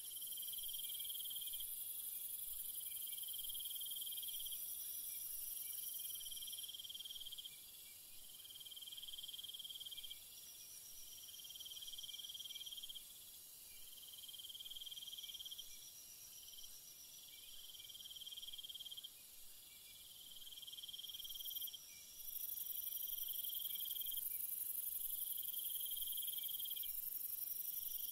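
Night insects chirping: a high pulsing trill in phrases of about a second and a half, one every two seconds or so, over a steady shrill higher still that fades about seven seconds in and comes back strongly near the end.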